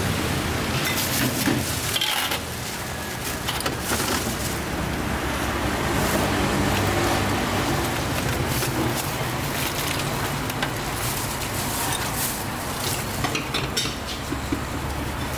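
Metal ladle and wire noodle strainer clinking against a steel stockpot, in short scattered knocks, over a steady rush of road traffic.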